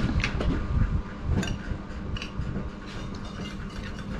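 A metal spoon clinking and scraping against a ceramic bowl of rice in irregular small clicks, the sharpest right at the start, over a steady low hum and rumble.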